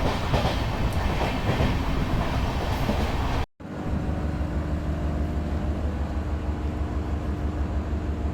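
Diesel-electric multiple unit (DEMU) train running on the rails: dense rumble and wheel clatter. This cuts off abruptly about three and a half seconds in and gives way to a steadier low drone with a steady hum.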